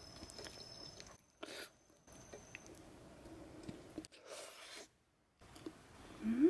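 Quiet eating sounds of grilled scallop with small clicks, broken by several short dead-silent gaps. A faint, steady, high insect trill runs through the first couple of seconds. Near the end comes a short hum from the eater that rises and then falls in pitch.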